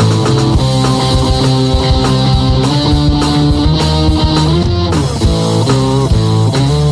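Rock music with guitar and a drum kit, played loud and steady with regular drum hits.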